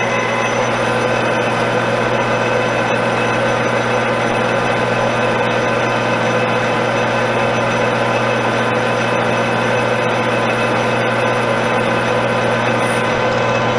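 Metal lathe running steadily with a constant motor and gear hum while a boring bar takes a light cut, about five thousandths, inside a brass part.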